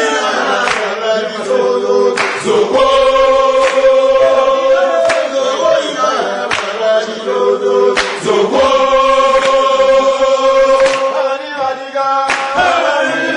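A choir of voices singing in unison in long held notes, phrase after phrase, with short breaks between phrases.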